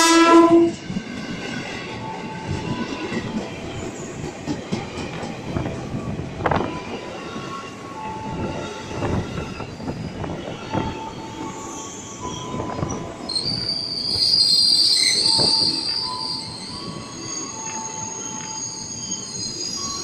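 An ex-JR 205-series KRL electric commuter train pulls into the station: its horn cuts off about half a second in, then the train rolls slowly past with clunks from the wheels over the rails and squealing from the wheels and brakes, loudest a little past the middle.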